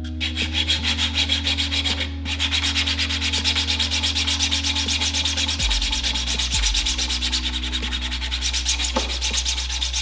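Sanding sponge rubbed in quick back-and-forth strokes over a 3D-printed plastic camera body, wearing the glossy printed layer surface down to a matte finish. The strokes break off briefly about two seconds in, then carry on.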